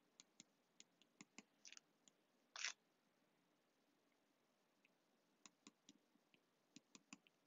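Faint, irregular ticks of a stylus tip tapping on a tablet's glass screen during handwriting, with one brief soft scratch about two and a half seconds in.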